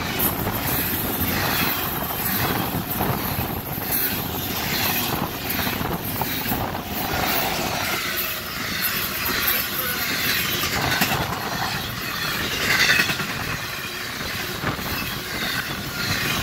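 Freight cars of a Union Pacific manifest train rolling past, with a steady rush of wheels on rail and a regular rhythmic clatter as the wheelsets go by.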